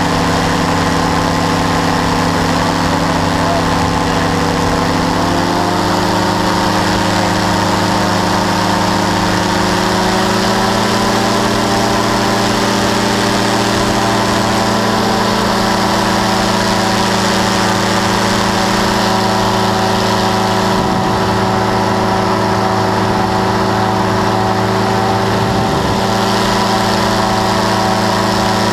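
Powered parachute engine running steadily in flight, heard close up from the seat. Its pitch steps up slightly about five seconds in and again about ten seconds in.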